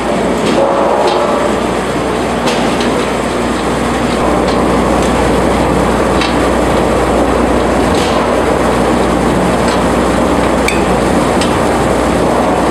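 Stainless-steel potato washing and peeling machine running: a steady mechanical clatter over a low hum, with irregular knocks as potatoes tumble against the rollers, spiral and steel trough.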